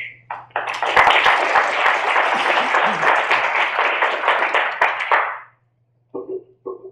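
Audience applauding, starting about half a second in and lasting about five seconds before dying away.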